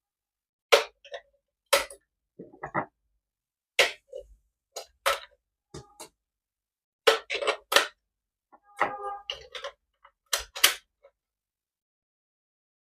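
Irregular sharp clicks and knocks, some in quick pairs and clusters, as hard plastic toy parts are handled.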